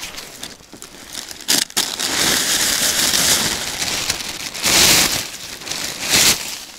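Large plastic bag rustling and crinkling as it is handled close up, with louder crackling bursts about a second and a half in, around five seconds in and near the end.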